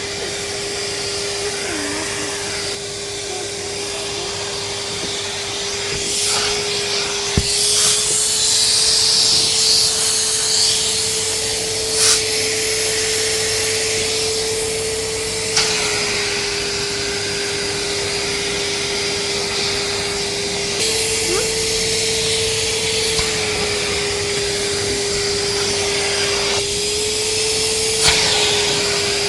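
Henry cylinder vacuum cleaner running steadily, its motor hum shifting slightly in pitch as the nozzle's airflow changes, with occasional short knocks of the nozzle against surfaces.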